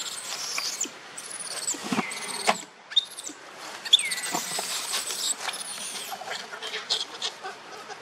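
Young macaque squealing, several high cries that fall in pitch, with dry leaves crackling and rustling under it as it squirms.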